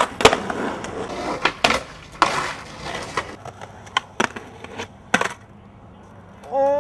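Skateboard session on concrete: a run of sharp wooden clacks and pops from the board, with short bursts of wheels rolling and scraping. Near the end someone lets out a drawn-out shout.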